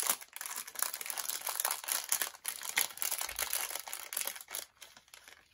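Thin plastic packaging crinkling and rustling as a small toolkit pouch is opened by hand and its contents are pulled out, with a run of irregular crackles and clicks that dies away near the end.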